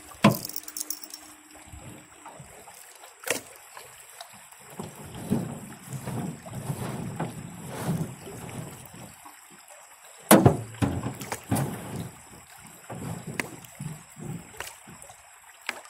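A grounded canoe being worked free in a shallow riffle: irregular splashing and sloshing water with four sharp knocks, the loudest about ten seconds in.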